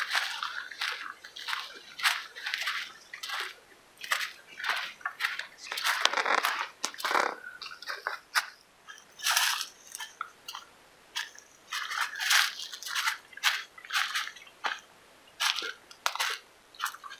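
Footsteps crunching on a dry, leaf-littered dirt trail at a walking pace, one crackly step after another.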